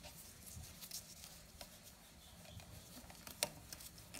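Faint rustling and light metal clicks as gloved hands handle a new piston and its rings on the connecting rod, with one sharper click about three and a half seconds in.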